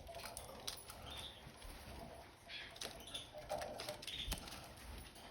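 Canaries in a cage: a few faint, short chirps scattered among light clicks and rustling.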